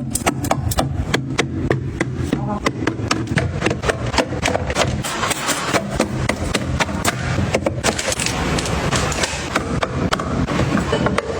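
A rapid, irregular run of sharp clicks, taps and knocks: small hard objects being handled and set down.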